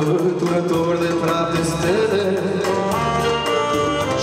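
Live band music: a saxophone playing over keyboard backing with a steady beat, and a man singing into a microphone.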